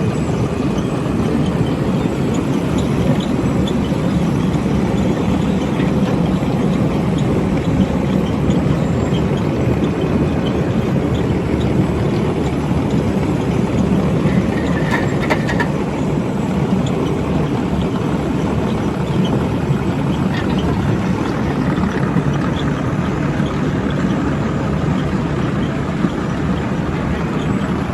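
Holmer Terra Dos T4-40 self-propelled sugar beet harvester working: a steady heavy diesel drone with a continuous clatter and rattle of machinery.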